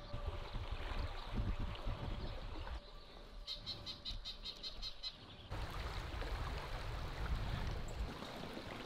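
Riverside outdoor sound: a low, uneven rumble of moving water and wind on the microphone. In the middle a quieter stretch holds a rapid series of high clicks, about five a second, from a small animal calling.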